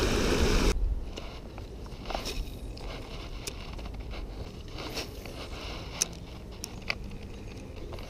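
Water rushing down a concrete spillway chute, cut off abruptly under a second in; then low-level scattered small clicks, scrapes and rustles from fishing tackle and hands handled close to the microphone.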